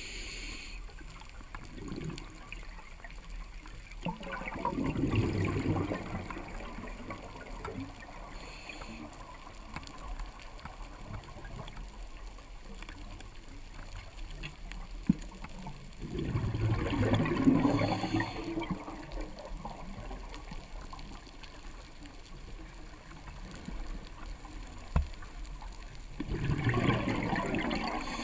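Scuba diver's exhaled breath bubbling out of a regulator underwater: three gurgling bursts, each a couple of seconds long, about ten seconds apart, with a low water hiss between them.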